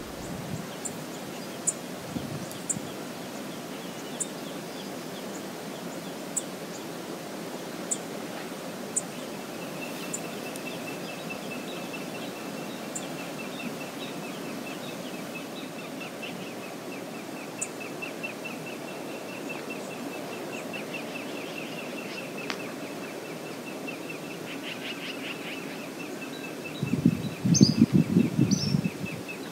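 Steady outdoor background noise with a small bird's rapid high trill repeating through the second half. A brief loud low rumble comes near the end.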